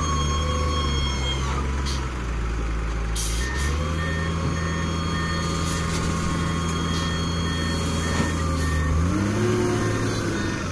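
LiuGong 848H wheel loader's diesel engine working under load. Its revs dip about two seconds in, pick back up, and rise again near the end. A rapid beeping alarm sounds through the middle part.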